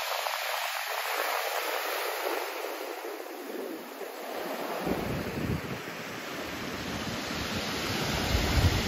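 Surf breaking and washing up over a shingle beach, a steady hiss of water over pebbles. From about halfway through, wind starts buffeting the microphone with a low rumble.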